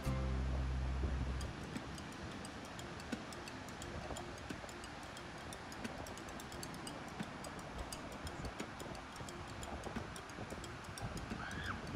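Background music stops about a second and a half in, leaving a steady wash of breaking surf with faint rapid ticking throughout.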